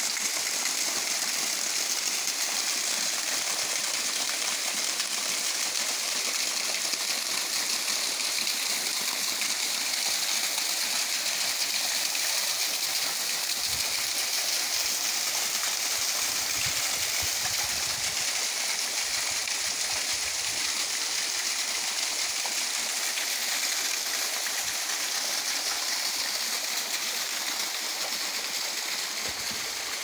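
Water falling in thin streams and sheets over a stone cascade wall into a pool below, a steady splashing rush.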